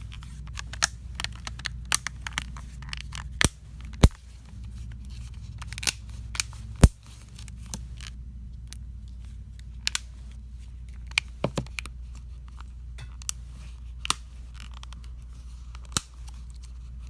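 Plastic back cover of a ZTE Blade Spark Z971 phone being pressed onto the frame, its clips snapping in with scattered sharp clicks, the loudest about four and seven seconds in. The clicks are the clips seating fully.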